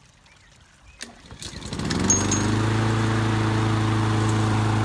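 Honda lawnmower's 5.5-horsepower engine being pull-started: a click about a second in, then the engine catches with a quick rise and runs at a steady speed.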